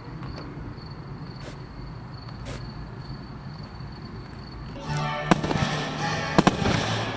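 Fireworks going off: launches and crackling start suddenly about five seconds in, with several sharp bangs. Before that there are only a few faint pops.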